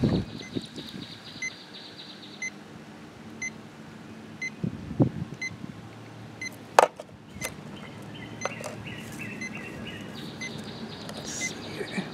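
Salt-water electrode boiler fizzing and buzzing with a steady low electrical hum as about 1,880 watts of 120-volt AC passes through the brine. A short faint beep repeats about once a second, and a few handling knocks sound, the loudest about seven seconds in.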